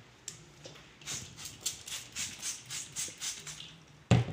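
Quick rubbing strokes, about four a second, as wet holographic rear projection film is smoothed down on a panel by hand, followed near the end by one sharp knock.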